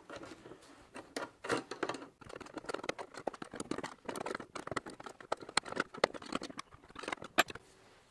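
Steel open-ended spanner clicking and clinking against a nut and the chromed coil springs of a leather bicycle saddle as the nut is turned up, in quick irregular taps that stop near the end.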